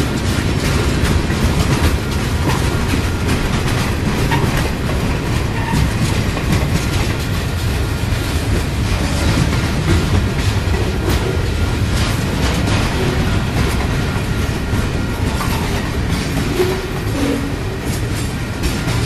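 Freight train of boxcars and lumber flatcars rolling steadily past, a continuous rumble with the wheels clicking over the rail joints.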